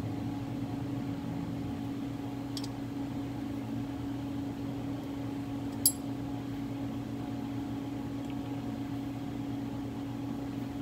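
Steady low hum of a powered-up CNC lathe standing idle, with two sharp metal clicks while the chuck is turned by hand and adjusted with an Allen key: a faint tick about two and a half seconds in and a louder click about six seconds in.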